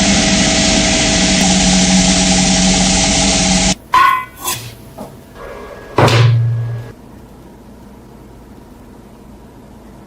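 A power tool running steadily, cutting off suddenly about four seconds in. A few short knocks and a brief low hum follow, then quiet.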